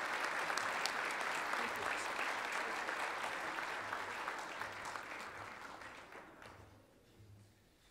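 Audience applauding, the clapping dying away about six to seven seconds in.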